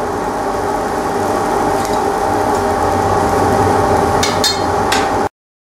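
Steel blowpipe rolled along the iron arms of a glassmaker's chair while the glass is shaped with hand tools: a continuous rattling clatter over a steady hum, with a few sharp clicks near the end before the sound cuts off suddenly.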